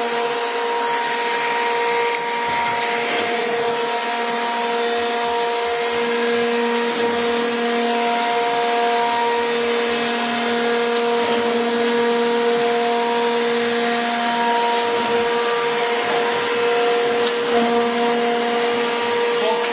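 Thompson 660 hydraulic surface grinder running: a steady machine hum with several even tones over a hiss, from its motors and hydraulics.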